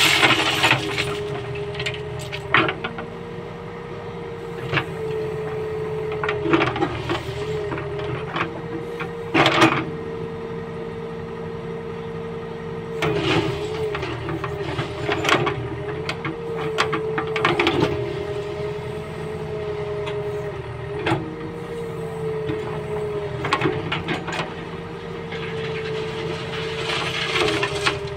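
Case backhoe loader's engine and hydraulics running steadily, the pitch dipping briefly several times as the arm is worked. Ballast stones clatter as the bucket tips them onto the track at the start, with scattered stone knocks after.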